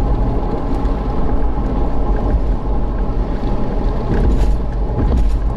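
A car driving, its engine and road noise a steady low rumble with a constant hum.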